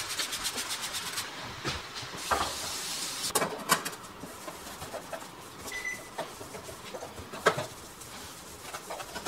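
Cloth scrubbing a stainless steel propane stovetop: quick back-and-forth rubbing for about the first second, then slower wiping broken by a few sharp knocks and clinks.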